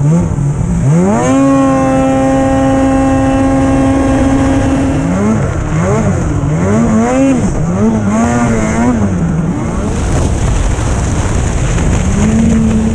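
Two-stroke snowmobile engine revving hard and holding a steady high pitch for several seconds, then rising and falling several times with the throttle, and climbing again near the end.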